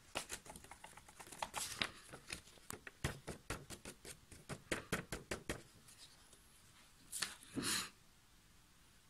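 A folded sheet of paper being tapped and shaken to pour protein powder into a glass of water: a quick, irregular run of light clicks and taps for about five seconds. Near the end come two louder brushing rustles as the paper is handled.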